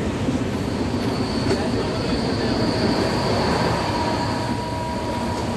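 Running noise of an Indian Railways passenger train heard from inside the coach: a steady rumble, joined about half a second in by a thin, high, steady wheel squeal, and a fainter lower squeal in the second half.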